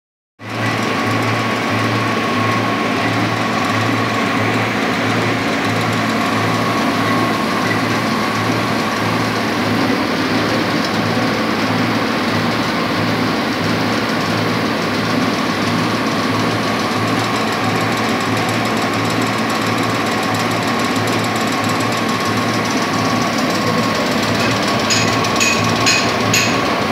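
De-oiled rice bran pellet mill running steadily under load, pressing bran into 5 mm pellets: a loud mechanical din with a low pulse about twice a second and a steady whine. A few sharp clicks come near the end.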